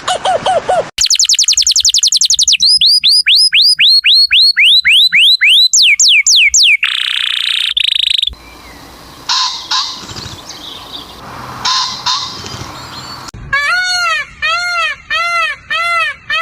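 A string of different bird-like animal calls, cut one after another. First comes a quick run of falling chirps, then clear downslurred whistles about four a second, then a brief buzz. After a quieter stretch with scattered calls, a repeated arched call sounds about twice a second near the end.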